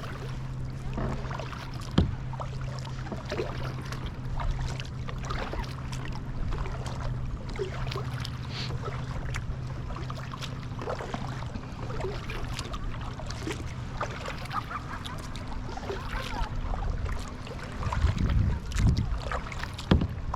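Kayak paddling: paddle blades dipping and water splashing and dripping in quick irregular ticks, over a steady low hum that fades out near the end. A few louder low thumps come just before the end.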